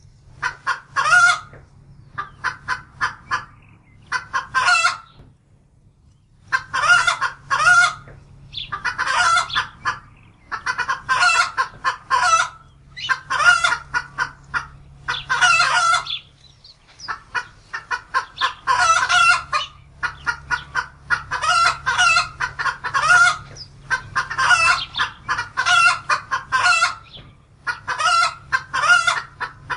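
A hen cackling: bursts of quick, short clucks, each ending in a louder, drawn-out squawk, repeating about every one to two seconds.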